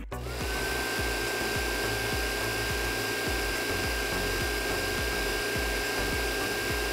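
Small electric water pump motor starting up, its whine rising briefly and then holding steady at a high pitch as it pumps water.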